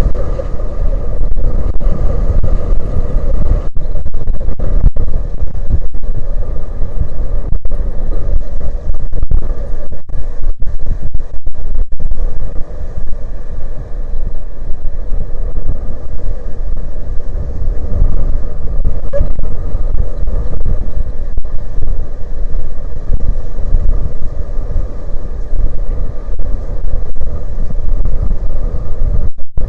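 Strong wind buffeting the microphone: a loud, steady low rumble that covers everything else.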